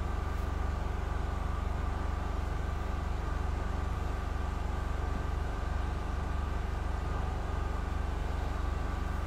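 A steady, low machine hum, engine-like, with a faint steady whine above it.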